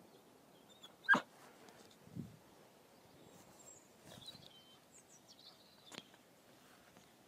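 A dog gives one short, sharp bark about a second in, followed by a soft low sound; otherwise quiet, with a few faint high chirps.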